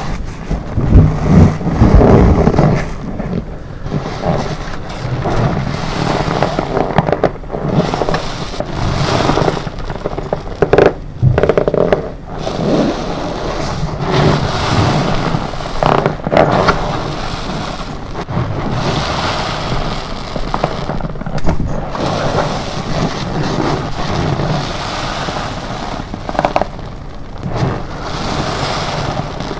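Soapy sponge loaded with detergent and cream cleanser being squeezed and worked by gloved hands: wet squelching and crackling of foam, with the gloves rubbing and squeaking, in irregular swells.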